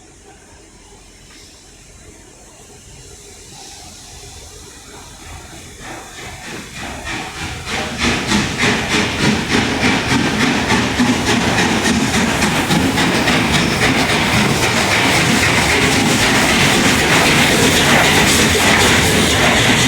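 A train approaching and running past close by, growing steadily louder over the first eight seconds, then a dense rapid clatter of wheels over the rails with a hiss on top.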